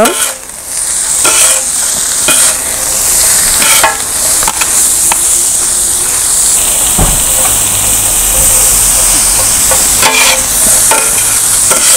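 Shredded cabbage and leeks sizzling in oil on a large flat griddle, with the occasional scrape and clack of two flat metal spatulas tossing them. A low rumble joins about seven seconds in.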